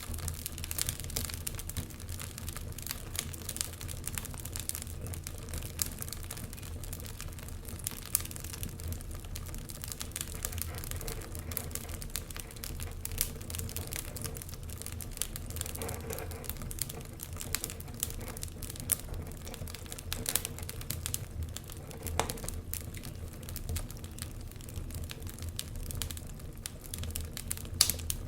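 Wood fire crackling, with many small irregular pops and snaps over a low steady rumble; a sharper pop stands out near the end.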